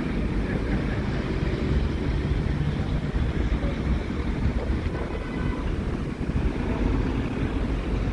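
Low, steady rumble of vehicle engines, with wind buffeting the microphone.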